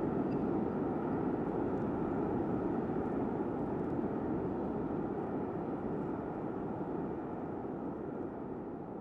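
A dense, steady wash of low noise with no beat or melody, slowly fading out: the closing drone of an electronic track.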